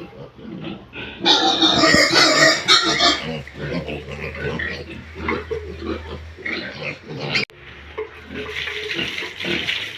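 Pigs calling: a loud, shrill burst lasting about two seconds near the start, then a run of shorter grunts and squeals.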